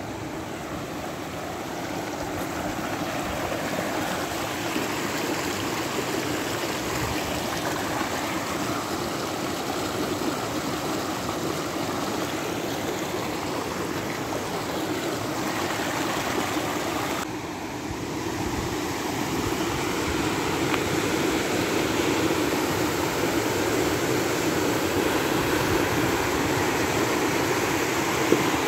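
Silty mountain river rushing over a wide gravel bed: a steady, unbroken rush of water that grows louder in the second half, after a brief dip about seventeen seconds in.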